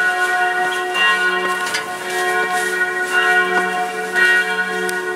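Church bells ringing: several bells struck again and again at an uneven pace, their tones overlapping and ringing on.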